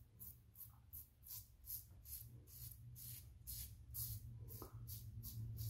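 Rockwell 6S stainless safety razor with an Astra Platinum double-edge blade scraping through lathered stubble on the chin and neck: short, quick, faint strokes, about four a second.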